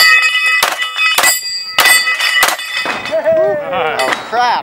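Five pistol shots about two-thirds of a second apart, each followed by the ringing of steel plates being hit on a Texas star target. After the last shot the ringing wavers in pitch while the star spins.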